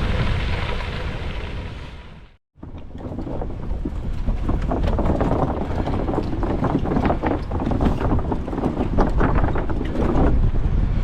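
Strong wind buffeting the microphone, a heavy low rumble with hiss. It fades out briefly about two seconds in and then comes back.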